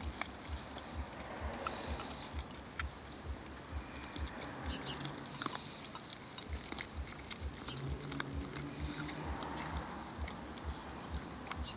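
A cane corso puppy chewing and licking raw chicken: wet mouth sounds with many irregular clicks of teeth.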